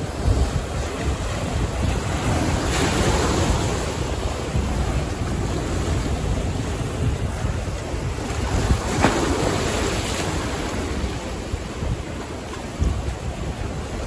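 Sea waves breaking and washing in, with two louder surges about three and nine seconds in. Wind buffets the microphone throughout, adding a low rumble.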